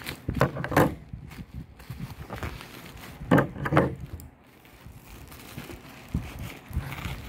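Black plastic courier pouch being pulled open and torn by hand, crinkling and crackling in bursts, loudest around the first second and again about three and a half seconds in.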